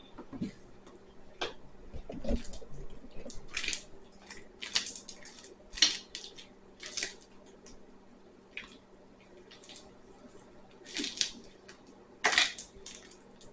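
Hands kneading and squeezing sticky homemade slime: irregular wet squelches and sticky smacks.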